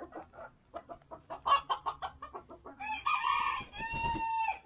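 Domestic chickens clucking in quick short calls, then a rooster crows once, starting about three seconds in and holding its last note until near the end.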